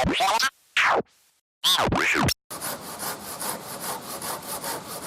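A short edited intro of sweeping tones that rise and fall, chopped by abrupt cuts, then a hand saw cutting wood in even strokes, about three a second.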